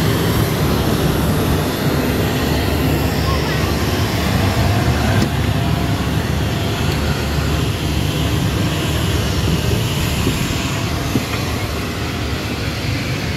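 Steady, loud rushing drone of aircraft machinery running at a parked Boeing C-17 Globemaster.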